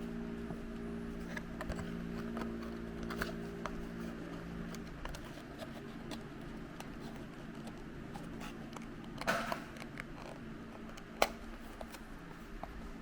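Hands handling small plastic toys and their packaging: scattered light clicks and crinkles, a brief rustle about nine seconds in and one sharp plastic click about eleven seconds in. A low steady hum underneath fades out about five seconds in.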